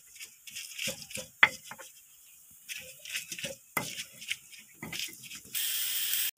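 Stone pestle grinding onion, garlic and red chillies in a stone mortar: irregular knocks and squashing scrapes of stone on stone. Large onion slips under the pestle when ground. Near the end the sound switches to a steady hiss of water boiling in a wok.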